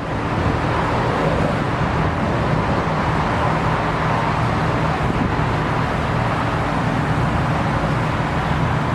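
Steady jet aircraft engine noise with a low hum, mixed with wind buffeting the microphone.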